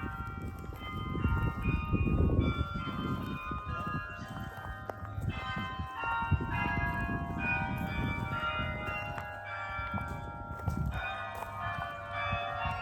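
Bok Tower's carillon playing, with many bell notes struck one after another and ringing on over each other. Under the bells is a low rumbling noise.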